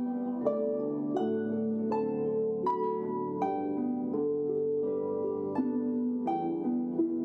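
Harp music: slow, even plucked notes about every two-thirds of a second, each left to ring under the next.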